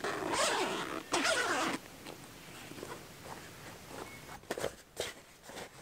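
Zipper on a canvas bell tent's side-window flap pulled open in two long zip strokes, followed by a few light clicks near the end.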